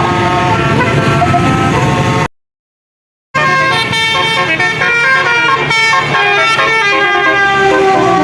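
A bus's basuri telolet horn, a multi-trumpet horn that plays tunes, sounding a melody of stepped notes. It breaks off for about a second of silence just after two seconds in, then plays on.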